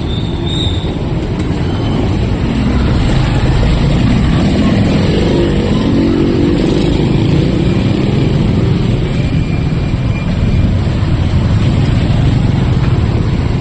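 Street traffic: vehicle engines running and passing close by, loudest in the middle and again near the end.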